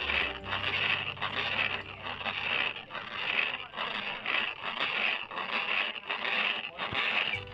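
Manual corn mill grinding peanuts into peanut butter: a gritty, scraping grind that swells and fades about once every three-quarters of a second.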